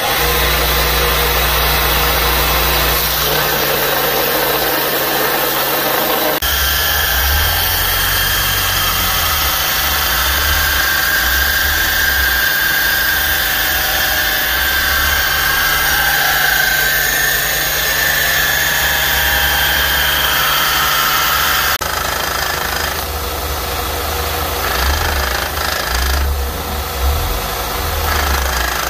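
Electric belt grinder built on an Allwin bench grinder, running with a steady motor hum. From about six seconds in, a hardened bearing-steel knife blank is held against the moving abrasive belt, adding a harsh, rasping grinding sound.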